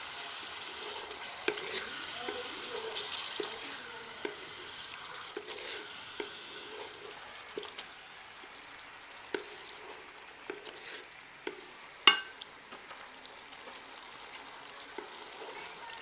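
Chicken masala with yogurt sizzling in a pot while a spoon stirs and scrapes through it, with short clicks of the spoon against the pot. There is one sharp knock about twelve seconds in.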